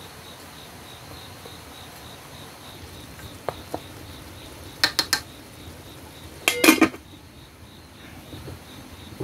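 Wooden chopsticks clicking against the rim of an aluminium pot of boiling greens: a few light taps, then three sharp ones close together. A little later the aluminium lid goes onto the pot with a short metal clatter, the loudest sound here.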